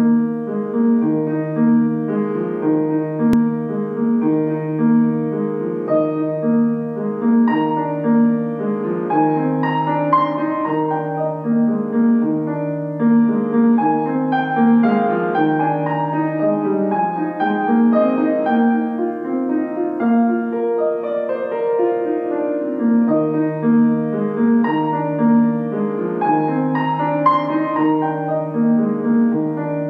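Instrumental piano music, a gentle piece with a repeating figure in the lower notes under a slow melody.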